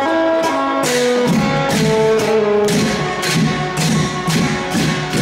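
Thai long drum (klong yao) ensemble playing: drum strokes and crashes in a steady beat of about two a second, under a melody of held notes.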